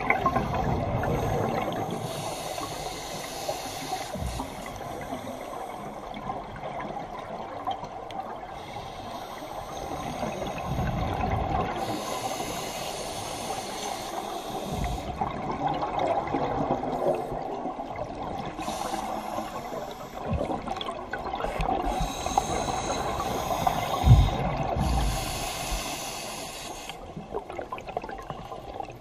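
A diver's scuba regulator breathing, heard underwater: hissing inhalations alternate every few seconds with gurgling bursts of exhaled bubbles.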